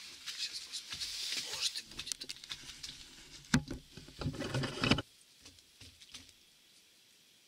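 Rustling of a winter jacket and handling noise from a hand-held camera, with many small clicks and bumps. It is loudest about three and a half to five seconds in, then stops abruptly, leaving only a few faint clicks.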